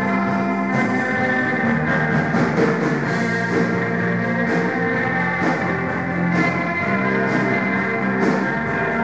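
Rock band playing live: electric guitar and bass over held keyboard chords, with a drum kit and cymbal hits about once a second.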